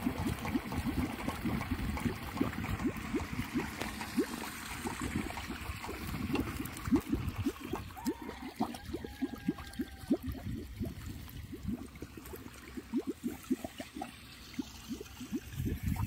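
Homemade plastic-bottle wind spinner turning on its bent metal rod, knocking and rattling irregularly several times a second as the wind drives it. The clatter is what is meant to frighten off rats and birds.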